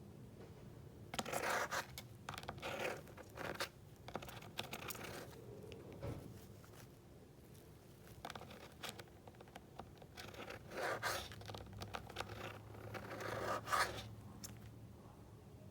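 Green-cheeked conure's beak and claws scratching, scraping and nibbling in irregular short rasps with a few sharp clicks, loudest a little past a second in and just before the end.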